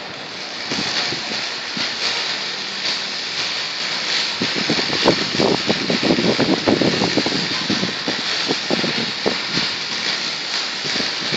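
Arc welding on a pipe: the arc's steady crackling hiss runs throughout, denser and louder around the middle.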